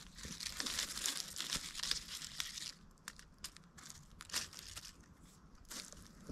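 Dry leaves and twigs rustling and crackling, dense for the first two and a half seconds, then a few scattered snaps.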